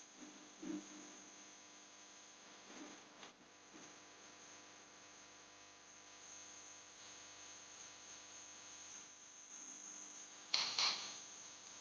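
Insects in forest undergrowth trilling steadily at a high pitch, with a short scuffing burst of noise near the end.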